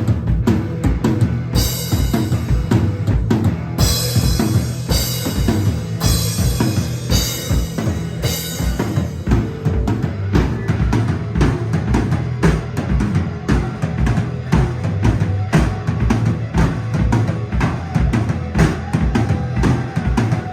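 Drum kit playing a steady beat with a kick drum about twice a second, over low sustained bass notes. Cymbals crash again and again during the first half.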